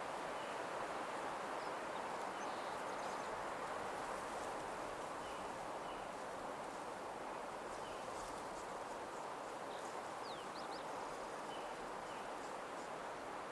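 Ambient nature soundscape: a steady rustling hush like wind in leaves, with faint short bird chirps every second or two and a few quick high bird notes about ten seconds in.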